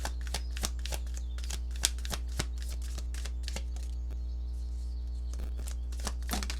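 Tarot cards being shuffled and handled: a run of quick snaps and taps of the cards, busiest at first, thinning out in the middle and returning near the end. A steady low electrical hum runs underneath.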